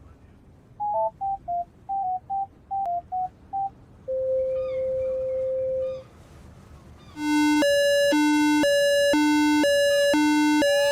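Synthesized electronic alert tones. First comes a quick run of short beeps stepping among a few pitches, then one steady tone held for about two seconds. From about seven seconds in, a loud buzzy high-low two-note alarm sets in, switching about twice a second.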